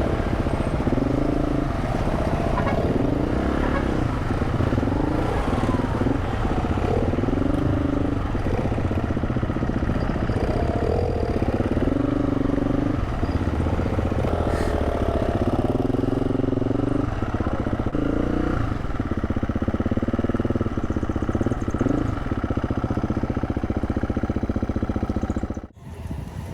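KTM 350's single-cylinder four-stroke engine running under way on a ride, its note rising again and again as it accelerates over a constant low rumble. It drops out briefly near the end.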